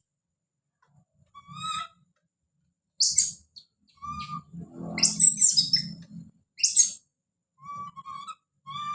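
Baby monkey calling out in a series of high-pitched cries, with the loudest shrill screams about three seconds in and again around five seconds in. A low muffled rumble runs under the calls for a couple of seconds in the middle.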